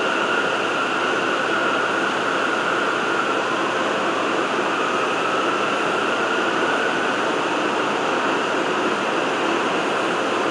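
R179 subway car running along the track, heard from inside the car: a steady rush of wheel and rail noise with a faint held whine that dips slightly in pitch midway and rises again.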